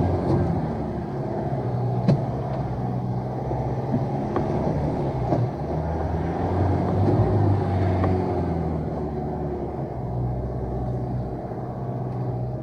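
Land Rover Defender 110's engine running at low revs as it crawls off rock steps and on along a dirt track, its note rising and falling with the throttle. Occasional knocks and clunks come from the vehicle over the rough ground, the sharpest about two seconds in.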